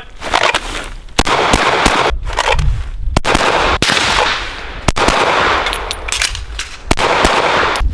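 Semi-automatic pistol gunfire: rapid strings of sharp shots at irregular spacing, some loud and some fainter, each ringing out briefly.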